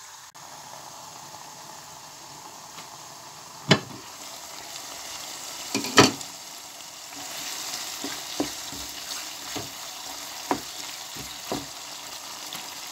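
Garlic, ginger, onion and tomato sizzling in oil in a pot covered with a glass lid, the hiss thickening in the second half. A few sharp clicks stand out above it, the loudest about four and six seconds in.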